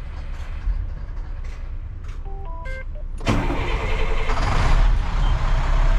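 A short run of electronic beeps stepping up in pitch, then about three seconds in the 2007 International 7500's diesel engine cranks and fires. It rises in level and settles into a steady idle.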